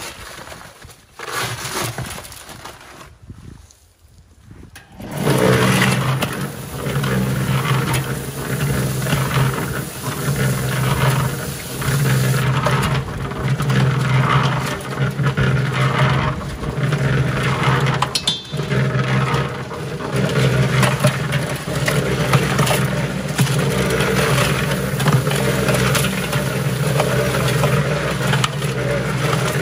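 Handling noise as a paper sack of concrete mix is emptied into the drum. Then about five seconds in, a Harbor Freight electric cement mixer starts: a steady motor hum, with lumps of wet concrete tumbling and scraping around the turning steel drum.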